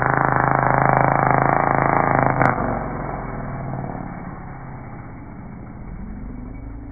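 Rovan Baja RC buggy's two-stroke gas engine running at high revs as it drives past. About two and a half seconds in there is a sharp knock, after which the engine note drops and fades as the buggy moves away, with the revs rising again near the end.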